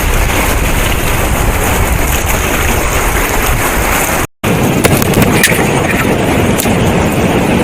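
Loud, steady rushing of a river rapid in spring high water, with a brief break about halfway through.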